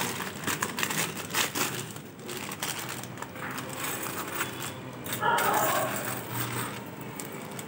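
Packaging crinkling and rustling as it is handled and opened, with irregular crackles and small clicks.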